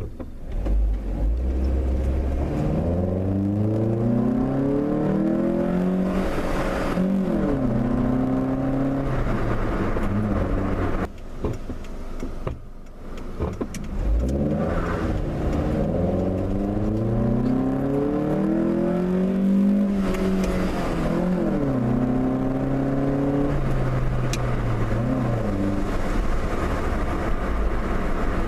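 2008 Hyundai Accent's 1.6-litre four-cylinder engine, breathing through a short ram intake, accelerating twice with a lull in between. Each time the engine note climbs in pitch and drops back, as at gear changes.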